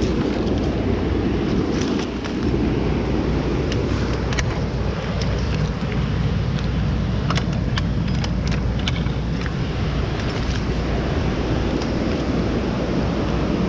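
A person scrambling along a washed-out riverbank with fishing gear: a steady low rumbling noise, with a run of sharp clicks and rattles between about four and ten seconds in.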